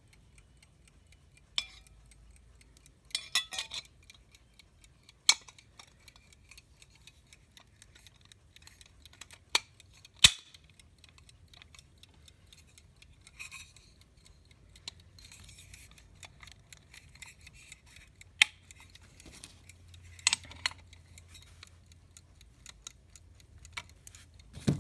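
Irregular small metallic clicks and clinks from an alarm clock's bell and case tabs being handled and fitted: about a dozen sharp knocks spread apart, a short cluster about three seconds in, and the loudest about ten seconds in.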